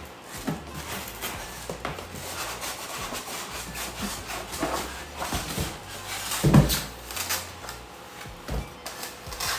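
Cardboard box packaging being handled: rubbing, scraping and small knocks as the contents are unpacked, with one louder thump about six and a half seconds in.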